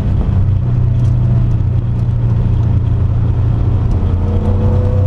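Ecotec-swapped Mazda Miata's engine running under load at steady revs, heard from inside the open cabin. About four seconds in, its pitch starts to rise as the revs climb.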